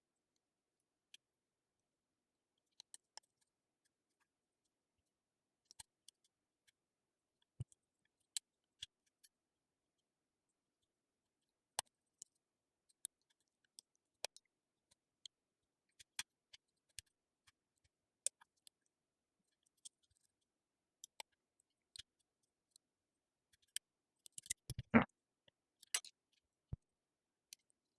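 Faint, sparse metallic clicks and ticks of lock picking tools working the pins inside a challenge lock, with a louder flurry of clicks near the end.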